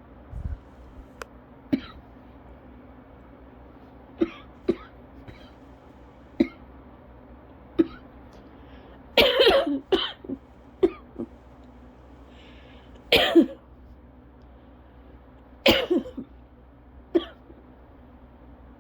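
A person coughing over and over during a cough-variant asthma attack. The coughs come as short single coughs at irregular gaps, broken by louder fits of two or three coughs in quick succession near the middle and toward the end.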